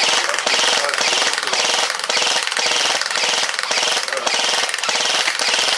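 Airsoft gun firing on full auto in a long, rapid, even rattle of shots.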